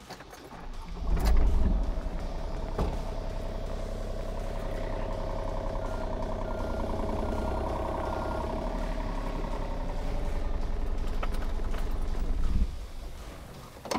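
John Deere 35G mini excavator's diesel engine starting about a second in, running steadily while the machine travels forward a short way on its tracks, then shutting off abruptly near the end. A few short beeps sound partway through.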